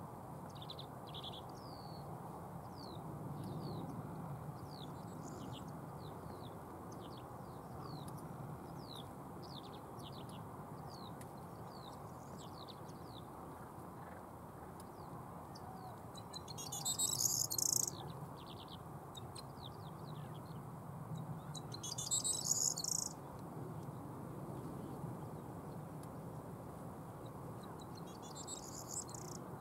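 Corn bunting singing its short, jangling song, loud and dense, three times about five seconds apart, the last starting near the end. Before the first song, a run of thin, high single notes.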